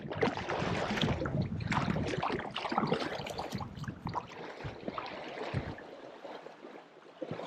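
Water splashing and lapping against a kayak on choppy lake water, busier over the first half and quieter after.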